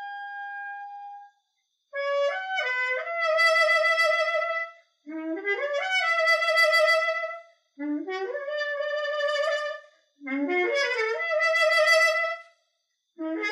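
Trumpet played with a metal mute in the bell: a melody in four phrases, each climbing in steps to a long held note with a slight vibrato, with short breaks between phrases and a brief note starting near the end.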